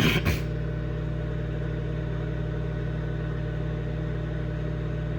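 Microwave oven running with a steady electrical hum, cooking an egg in water. A brief noisy sound at the very start.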